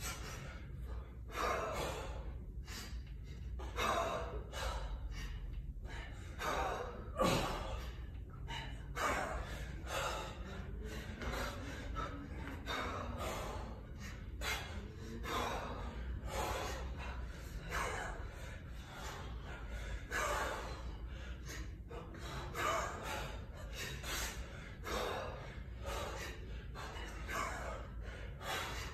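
Hard, rhythmic breathing of a man working through kettlebell reps: short forceful gasps and exhalations, one to two a second, kept up without a break.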